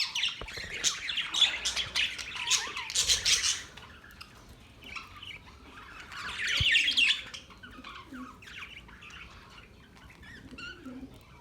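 Budgerigars (budgies) chirping and squawking in quick, high calls. The calls are dense for the first three seconds or so, thin out, come in another loud burst about six to seven seconds in, then turn sparse.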